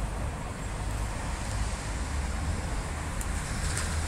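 Steady outdoor background rumble of wind buffeting the microphone, mixed with distant road traffic. Two faint ticks come near the end.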